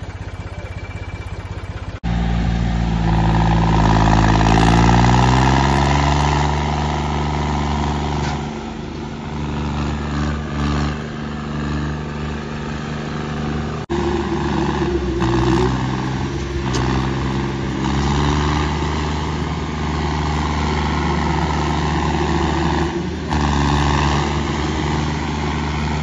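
John Deere tractors' diesel engines running hard under full load, hitched back to back and pulling against each other in a tug-of-war. The engine note drops a few seconds in as they take the strain.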